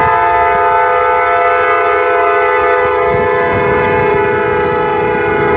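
Train air horn stuck on, blaring one steady unbroken chord of several tones without letting up. About three seconds in a low rumble joins underneath.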